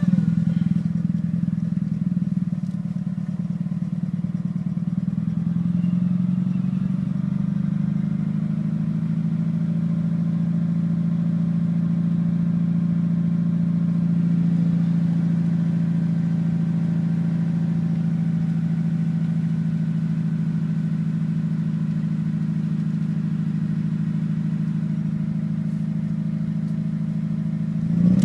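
Mitsubishi Lancer Evolution's turbocharged four-cylinder idling just after a cold start, running unevenly at first and then settling to a steady note, misfiring on cylinder 1 as it does when cold. Near the end the engine note rises as it is revved.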